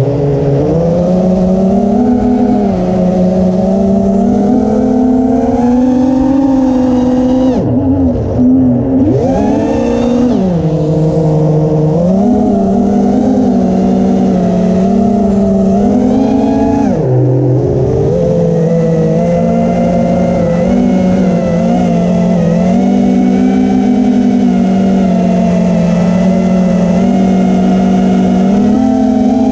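Brushless motors and propellers of an FPV quadcopter whining in flight, the pitch rising and falling with the throttle. The pitch drops sharply twice, about eight and seventeen seconds in, then climbs again.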